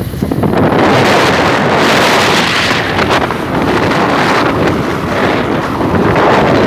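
Wind buffeting a phone's microphone while filming from a moving vehicle: a loud, steady rushing noise with low rumble, swelling up about half a second in.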